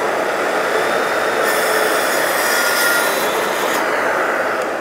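TICHOP TPS-140BL-B cordless plunge saw running and cutting through 30 mm MDF along its guide rail. The cutting noise grows harsher through the middle of the cut and eases off near the end as the cut finishes.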